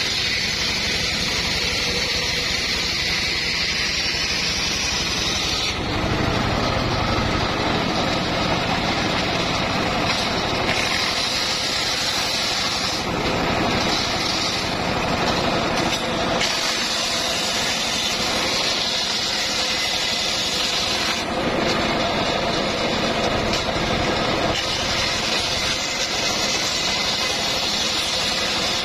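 Homemade table circular saw running steadily, ripping planks lengthwise; a high whine from the blade cutting the wood comes and goes in several long stretches as each plank is fed through.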